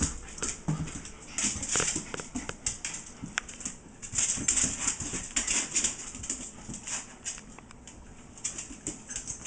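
A young cat and a small puppy play-fighting on a tile floor: busy, irregular scuffling and scrabbling, with quick clicks of claws and paws on the tiles.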